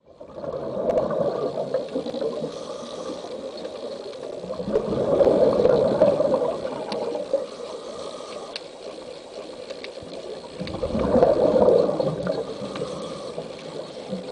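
Underwater gurgling of exhaled bubbles from a scuba diver's regulator, swelling three times, about every five seconds.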